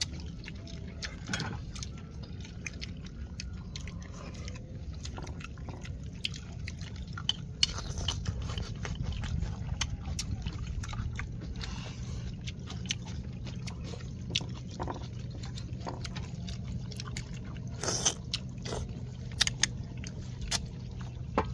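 People eating: chewing, with chopsticks clicking and scraping against ceramic bowls in many short sharp taps, over a steady low rumble.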